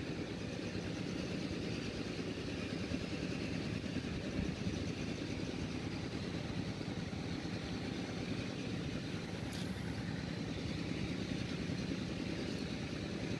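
Steady rushing of a stream flowing over a shallow rocky bar, with a short click about ten seconds in.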